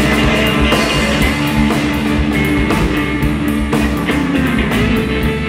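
Live rock music in a guitar-led instrumental passage between sung lines, with a steady beat.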